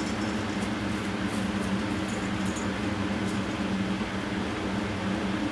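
A machine running steadily, heard as an even airy hiss over a low, constant hum.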